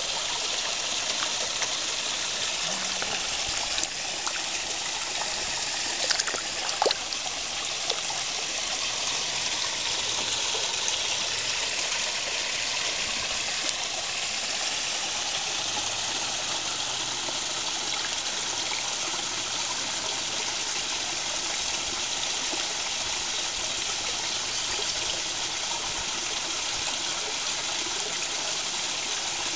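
Steady running, trickling water of a koi pond, with a few brief sharp splashes, a small cluster of them about six seconds in, as koi feed on floating pellets at the surface.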